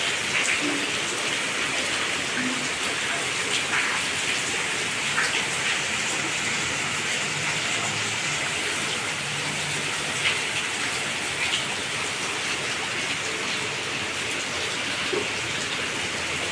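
Steady rain falling, a continuous hiss with a few louder drops ticking here and there.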